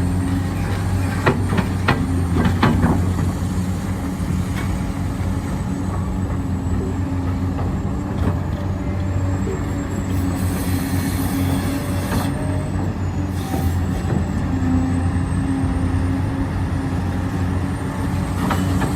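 HUINA scale RC construction machines working, with a steady engine-like hum. A few clicks and knocks come in the second and third seconds, and a faint high whine wavers in pitch in the second half.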